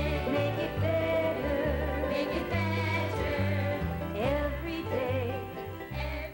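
A song: a singer's wavering melody over a bass line moving in steps, starting to fade out near the end.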